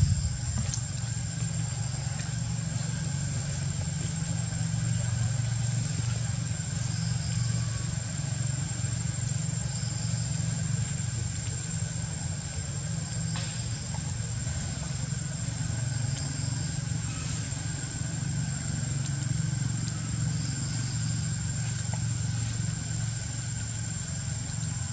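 Outdoor background: a steady low rumble like distant engines, with a constant thin high-pitched whine above it and faint short chirps every few seconds.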